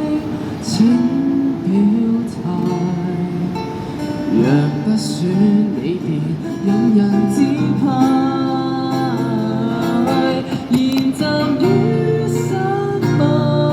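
Live Cantonese pop song played by buskers: strummed acoustic guitar with a singer's voice over it.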